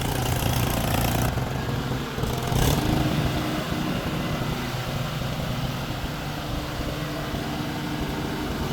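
Heavy machinery's diesel engine running steadily, a little louder about two to three seconds in.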